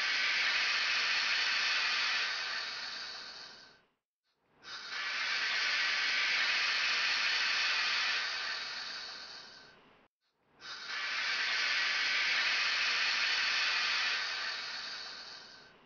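Steam hissing from a steam locomotive. It comes as a long, even hiss that fades away, stops, and starts again abruptly twice, each stretch lasting about five seconds.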